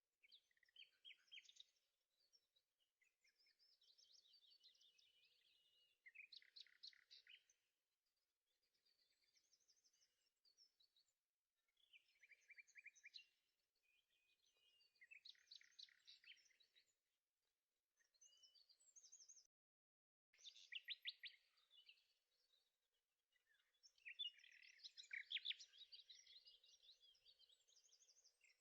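Faint birds chirping and trilling in short repeated phrases, with brief pauses between them.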